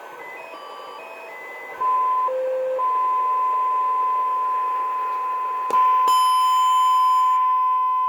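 SSB receiver audio from a (tr)uSDX transceiver tuned onto an injected signal-generator carrier: short beat-note tones step from pitch to pitch as the tuning moves, then settle about two seconds in into a steady tone near 1 kHz. A click comes about six seconds in, after which the tone is a little louder.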